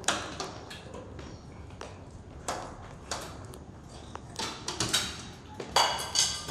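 Irregular sharp knocks and clinks, some with a brief ringing, from a tool striking at a window's glass pane to break it open; the loudest cluster comes near the end.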